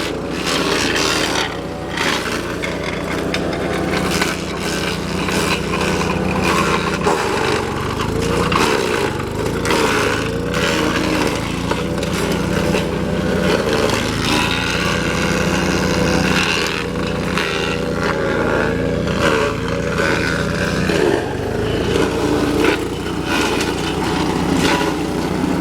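GeoTech PCS70 BS garden shredder's small engine running steadily while it chews branches, with irregular cracking and crunching of wood and a wavering pitch as the load changes.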